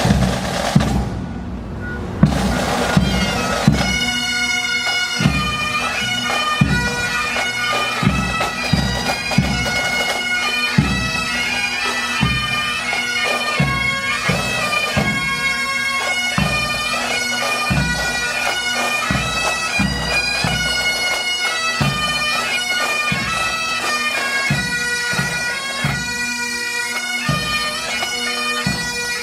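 Pipe band playing. Drum strokes open, then the bagpipes strike in about three seconds in and play a melody over their steady drone, with the drums beating underneath.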